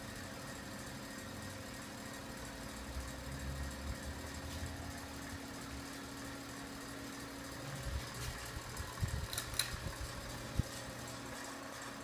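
Encon ceiling fan running, a steady motor hum with a low rumble underneath. A few short light knocks come in the second half.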